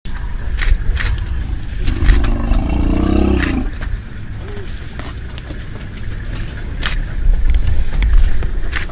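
Low, steady rumble of an idling vehicle engine with scattered clicks, and a single drawn-out, wavering call lasting nearly two seconds about two seconds in.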